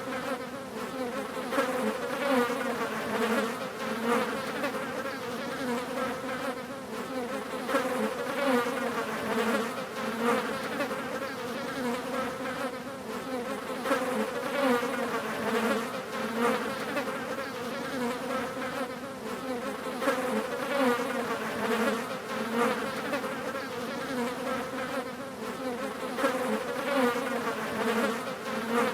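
Several flies buzzing continuously, a steady drone that wavers and swells slightly as they fly about.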